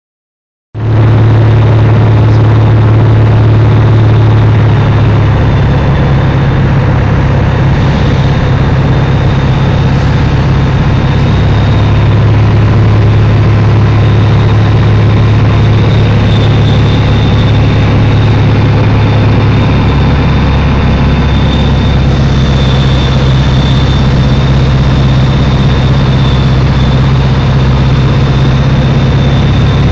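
Socata TB20 Trinidad's six-cylinder Lycoming IO-540 engine and propeller heard from inside the cockpit: a loud, steady drone at approach power, with a thin high whine above it. The sound comes in abruptly about a second in.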